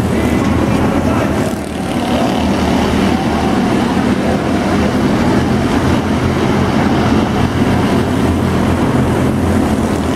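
Engines of several small arena race cars running hard in a race, a continuous dense engine noise with engine notes faintly rising and falling as the cars accelerate and lift.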